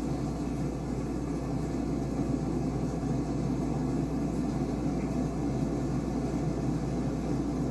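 A steady low rumbling noise with a constant low hum beneath it.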